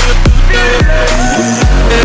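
Background music: an electronic track with heavy bass and a steady beat, no vocals here.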